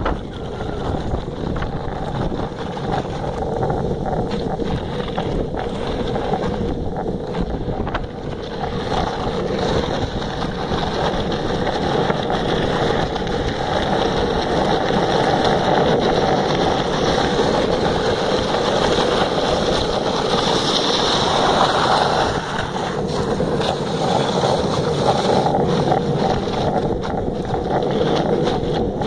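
Longboard urethane wheels rolling fast on rough asphalt, a steady rumbling hiss, with wind buffeting the microphone.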